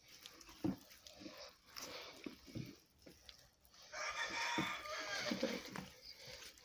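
Soft, scattered thumps of a heavy bread dough being beaten in a tub. About four seconds in, a chicken calls for about a second and a half in the background.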